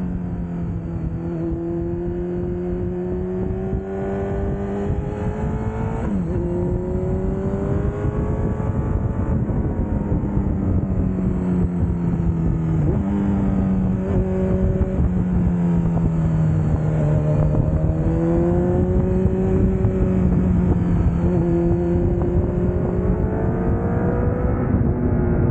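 Honda CBR1000RR sportbike's inline-four engine under way on a winding road, its note rising and falling with the throttle and jumping abruptly a couple of times, over steady wind rush. It grows slowly louder.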